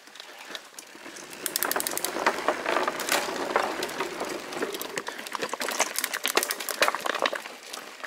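Santa Cruz 5010 mountain bike rolling across an old suspension bridge: a dense run of clattering knocks and rattles as the tyres go over the deck and the bridge shifts under the load. It builds about a second and a half in and eases off near the end.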